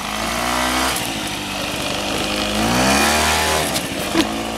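Small two-stroke moped scooter engine running as it rides off, the revs easing and then climbing again about three seconds in.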